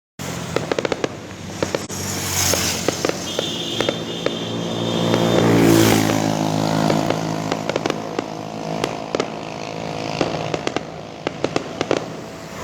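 Fireworks and firecrackers going off in rapid pops and cracks, with a high whistle for a couple of seconds early on. An engine hum swells to its loudest in the middle and then fades under the crackling.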